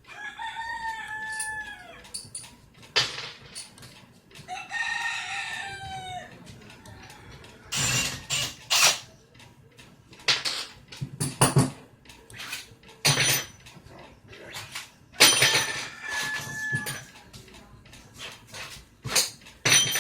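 A rooster crows twice in the first several seconds, then a run of sharp metallic clicks and clatters follows as the socket, nuts and bus bars of a lithium battery pack are handled during disassembly.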